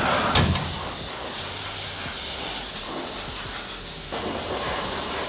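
High-pressure hose spraying water onto a ute's body, a steady hiss that gets louder about four seconds in.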